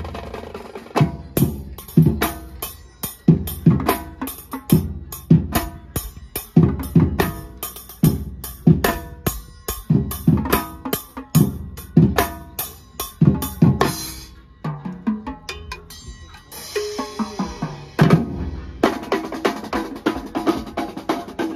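Drum troupe playing LED-lit snare and bass drums together in a steady, driving beat. About two-thirds through the beat thins to a sparser passage for a few seconds, then the full groove returns.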